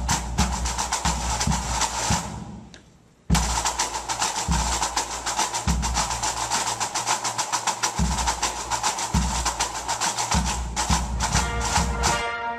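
Intro music: a fast drum-and-percussion rhythm with wood-block-like clicks over a low beat. It fades out about two seconds in and starts again suddenly a second later; pitched tones come in near the end.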